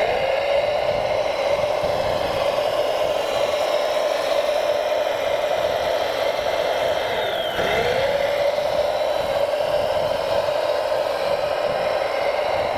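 Radio-controlled model truck's electric drive motor and gearbox whining steadily under load. The pitch sags briefly about seven seconds in and climbs back, as if the motor slows and picks up speed again.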